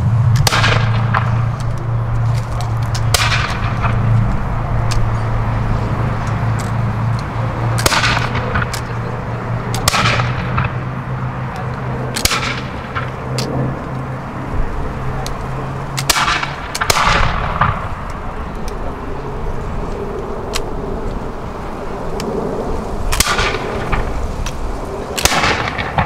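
Flintlock muskets fired one after another down a line of soldiers in a feu de joie: about nine sharp black-powder reports, a few seconds apart. Under them runs a steady low hum that stops about two-thirds of the way through.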